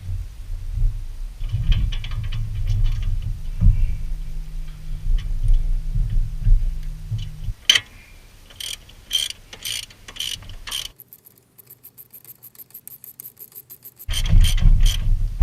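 Hand ratchet wrench clicking as it turns bolts, first in separate strokes of about two clicks a second, then in a fast run of rapid clicks. Low rumble and handling knocks fill the first half.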